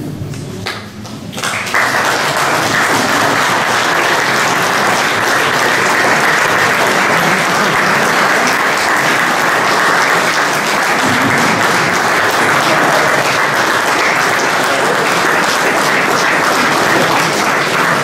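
Audience applauding steadily, setting in a little under two seconds in.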